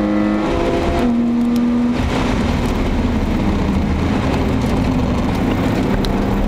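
BMW 525i E34's 2.5-litre straight-six running hard under load, heard from inside the cabin. About two seconds in the steady engine note falls away as the car lifts off for a corner, leaving wind and tyre rush. Near the end the engine note returns, rising slowly as it accelerates again.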